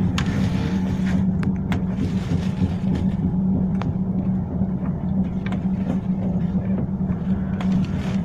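A tram running along its line, heard from inside the car: a steady low hum over a continuous rumble, with a few short clicks and rattles.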